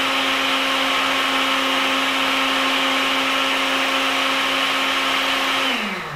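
Countertop blender running steadily at full speed, puréeing berries into a sauce. Near the end it is switched off, and its motor hum falls in pitch as it spins down.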